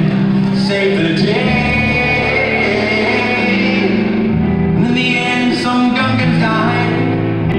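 Live band music with singing, recorded from the audience in a concert hall.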